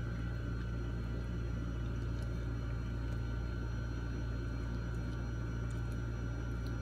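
A steady low hum and drone, with a few faint short clicks on top.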